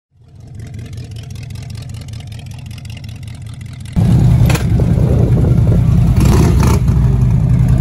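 Deep rumble of large vehicle engines fading in, then about four seconds in a much louder deep engine rumble with a few brief louder bursts.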